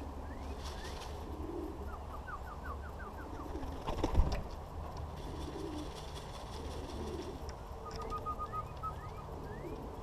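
Racing pigeons cooing, with small birds chirping short rising notes and a quick trill over them. One sharp thump about four seconds in.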